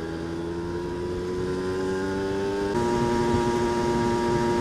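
Aprilia RS125's 125 cc single-cylinder two-stroke engine pulling under way with its revs climbing slowly, then dropping sharply at a gear change about three seconds in and running on steady.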